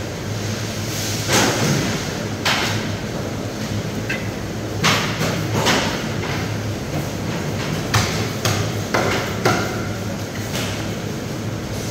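Irregular sharp knocks on a wooden chopping block, about nine in a few seconds, from fish being handled and cut. A steady low hum runs underneath.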